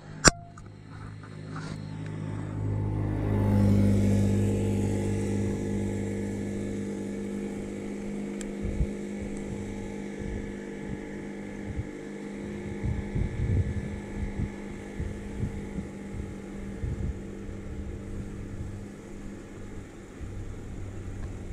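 A motor vehicle's engine running at a steady pitch. It swells to its loudest a few seconds in and then slowly fades, with irregular low thumps over it.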